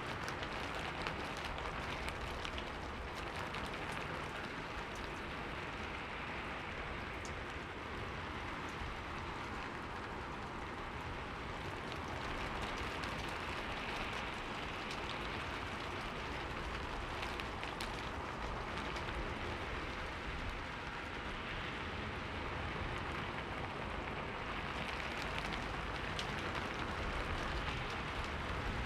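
Steady rain falling on a surface, with a few separate drops ticking now and then.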